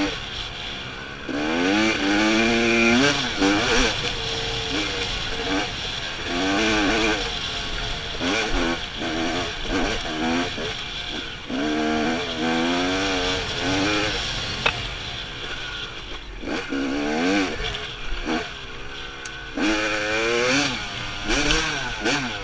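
Dirt bike engine being ridden hard, its pitch climbing and dropping back many times as the throttle is opened and closed.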